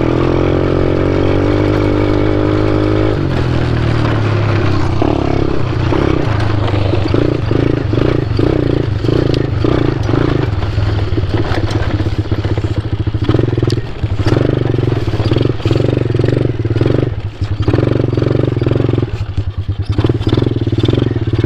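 ATV (quad bike) engine revving up from pull-away, its pitch rising steadily for about three seconds, then running hard with an uneven, surging note as it is ridden at full throttle.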